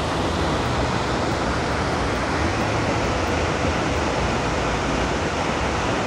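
Steady rushing of a waterfall, an even wash of water noise.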